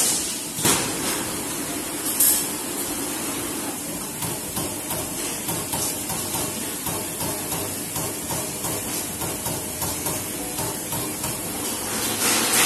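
Trumpf Trumatic 500 CNC punching press punching a metal sheet: a steady run of short knocking strokes, about three a second, over the machine's running noise. Two short, sharp hisses come in the first few seconds.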